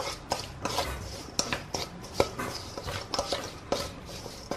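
A wooden chopstick and hand tossing chopped vegetables in a stainless steel mixing bowl: irregular clicks and taps against the metal, about three a second.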